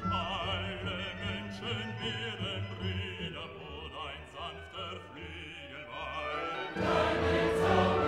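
Background music: classical, opera-style singing with a wide, wavering vibrato over sustained accompaniment, swelling fuller and louder near the end.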